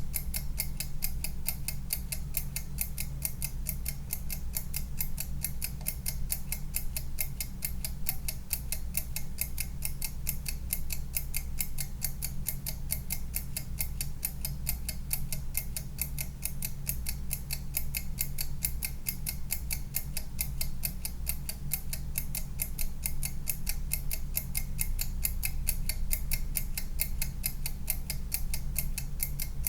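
Kitchen timer ticking steadily and evenly, several ticks a second, while it runs down.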